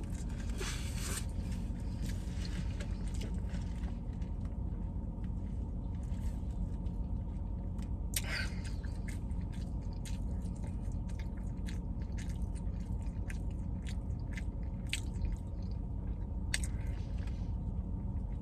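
A person chewing and biting food close to the microphone: a run of small, irregular wet mouth clicks, over a steady low hum in a car cabin.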